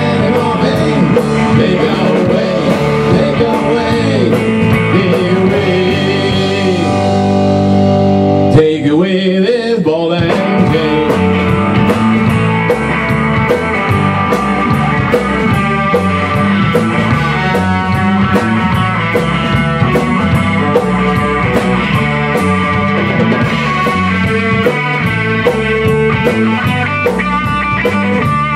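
Rock band playing live: electric guitar and bass guitar over a drum kit keeping a steady beat. About nine seconds in, the bass and drums stop for a moment after a loud hit, then the band comes back in.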